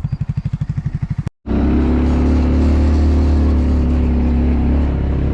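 Off-road vehicle engine running: a rapid, even pulsing idle, then, after a cut about a second and a half in, a steady loud engine drone.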